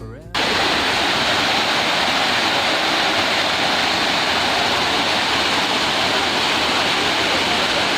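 A waterfall's water rushing in a steady, loud, even noise, starting abruptly about a third of a second in as the end of a music track fades out.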